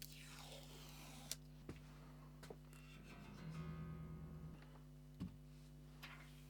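Quiet plucks and string noise from an unplugged bass guitar: a falling scrape at the start, a few sharp clicks, and one held note about halfway through, over a steady low hum.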